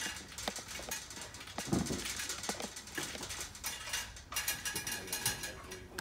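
Handling noises as parts and tools are picked up: scattered clicks and light knocks, a dull thump about two seconds in, and rustling near the end.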